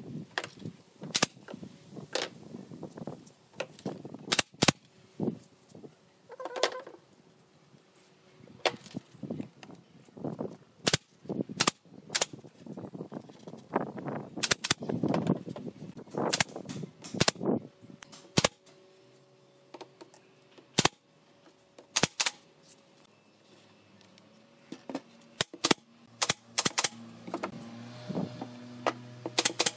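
Pneumatic brad nailer firing nails into a pine pallet-wood frame: a run of sharp, irregular shots, some in quick pairs, mixed with the knock of wood handled on the bench. A faint low hum comes in during the second half.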